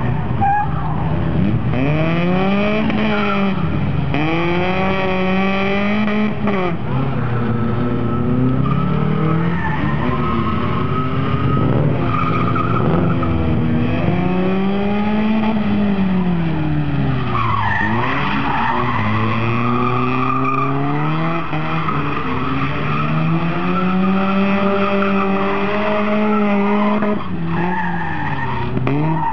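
A BMW E30's engine is revved hard and dropped back over and over as the car is thrown through a slalom course, its pitch rising and falling every couple of seconds. The tyres squeal as the car slides through the turns.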